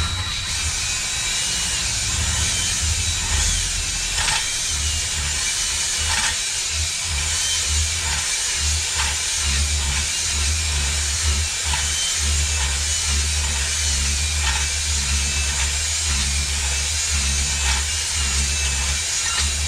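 Electric drill spinning a cylinder hone inside the cast-iron bore of a 12 hp Briggs & Stratton engine, putting a cross-hatch back on the cylinder wall. It starts abruptly and runs steadily, with a wavering whine over a pulsing low rumble.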